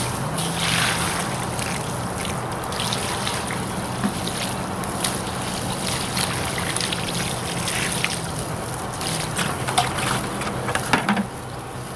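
Water poured from a bucket splashing and trickling over a rag-wrapped metal gas pipe to cool the wood gas, stopping near the end. Under it a steady low hum runs throughout, from the gasifier's blower fan.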